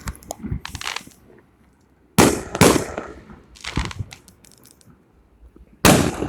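A series of loud, sharp bangs at irregular intervals, each fading away over a fraction of a second. Two come about half a second apart a couple of seconds in, a smaller one follows, and another loud one comes near the end, with fainter cracks between them.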